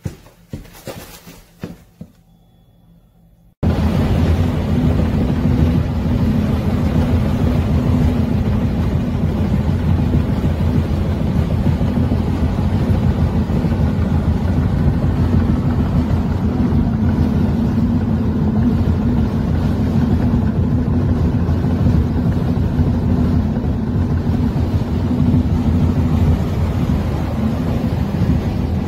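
Steady road and engine noise inside a car travelling at motorway speed, starting abruptly about three and a half seconds in. Before it, a few footsteps on a wooden floor.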